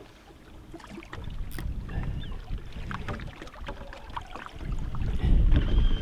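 Low rumbling noise on a fishing boat on the water, with scattered small clicks and knocks; the rumble grows louder about five seconds in.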